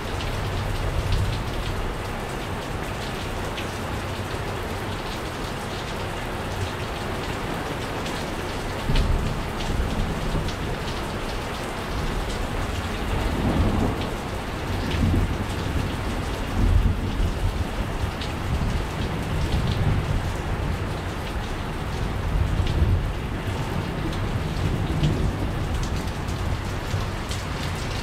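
Steady rain falling, with low rumbles that swell and fade several times through the second half.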